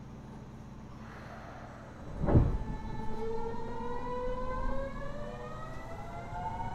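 The Mitsubishi Electric GTO-VVVF traction inverter of a Kyoto Subway Series 50 car whining as the train pulls away: a low steady hum, a thud about two seconds in, then several tones rising together in pitch as the train accelerates.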